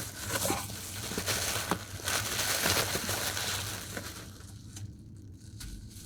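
Packaging crinkling and rustling as a parcel is unwrapped by hand, with a few light clicks; it dies down after about four seconds.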